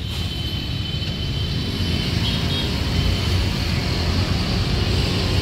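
Steady rumble of road traffic, growing slightly louder toward the end.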